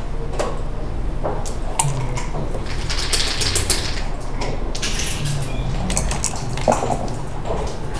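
Backgammon checkers clacking as they are picked up and set down on the board. A sharper click a little before the end as the player presses the game clock.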